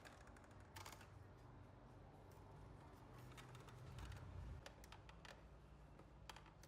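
Faint Epson L3150 inkjet printer running a test print: a low motor hum that swells about four seconds in, with scattered light clicks.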